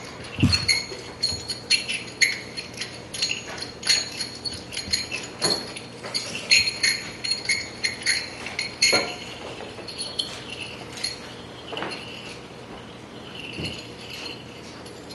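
Live improvised sound-art: small hard objects clinking and rattling in quick, irregular taps with a bright ringing, and a low thud just after the start. The taps thin out after about ten seconds, leaving a fainter ringing tone.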